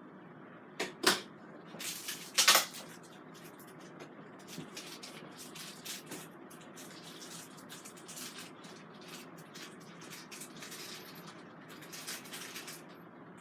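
Plastic parts of a Bissell vacuum cleaner being handled and fitted together by hand: a few sharp knocks about a second in and again around two and a half seconds, then a long run of light clicks and rattles.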